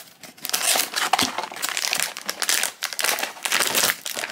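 Crinkling of a Pop Mart foil blind bag and rustling of its cardboard box as hands pull the bag out and handle it, in a run of irregular crackles.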